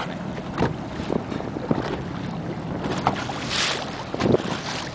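Wind buffeting the microphone over choppy water, with a low steady motorboat engine hum and water slapping underneath. A short hissing rush comes about three and a half seconds in.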